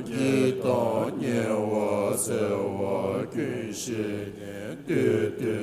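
Buddhist prayer chanting: voices intoning a mantra in long phrases over a steady low drone.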